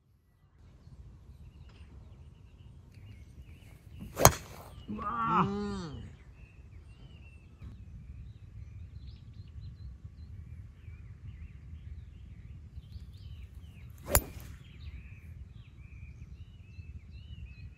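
Two golf shots about ten seconds apart, each a single sharp crack of club on ball: a 3-wood tee shot about four seconds in and a 4-hybrid shot from the fairway near fourteen seconds. A short pitched call follows just after the first strike, and birds chirp in the background.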